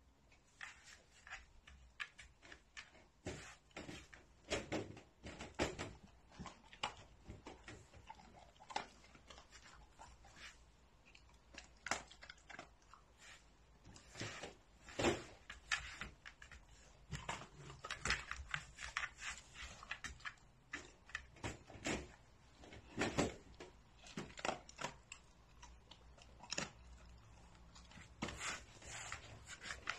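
A dog in a wire crate taking treats from a hand: irregular short clicks and knocks as it eats and shifts about on the crate's tray, the metal crate rattling now and then.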